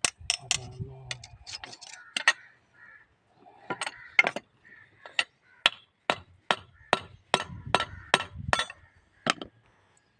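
Hammer striking metal parts of a rickshaw wheel: sharp clinking blows, scattered at first, then a steady run of about two strikes a second from about five seconds in until near the end.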